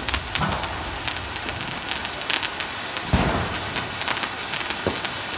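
Multi-colour falls ground firework burning: a steady hiss with dense sharp crackling, and one louder thump about three seconds in.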